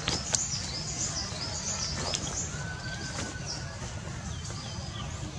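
Birds chirping: many short, high-pitched chirps in quick succession, with a brief steady whistled note about halfway through. A few sharp clicks and a steady low rumble sit underneath.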